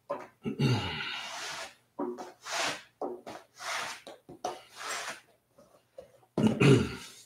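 A Hermann Oak veg-tan belt strap lined with Horween Latigo is pulled fast through a canvas burnishing cloth in a gloved hand. It makes a short rasping swish about once a second as the friction heats the paraffin wax into the edge. The two loudest swishes, about half a second in and near the end, come with a short low grunt of effort.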